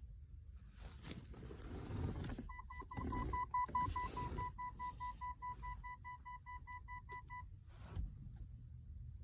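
Rapid electronic beeping, about four short even-pitched beeps a second, which starts about two and a half seconds in and stops after about five seconds. Rustling handling noise comes before and under the first beeps.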